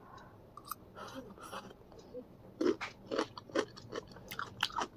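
Close-up eating sounds: a mouthful of Buldak spicy ramen noodles being chewed with wet mouth clicks. The sound is soft at first and turns into a quick run of distinct clicks about two and a half seconds in.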